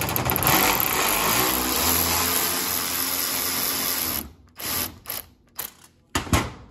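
Cordless quarter-inch electric ratchet running steadily for about four seconds, spinning a 10 mm nut off a bolt. It then stops, and a few short knocks of metal parts on the steel bench follow.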